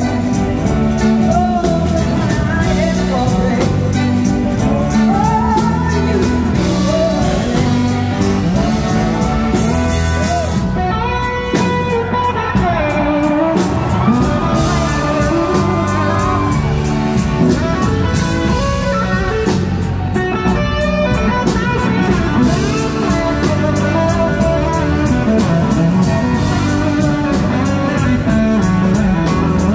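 Live blues-rock band performing a song: singing over electric guitar and the full band.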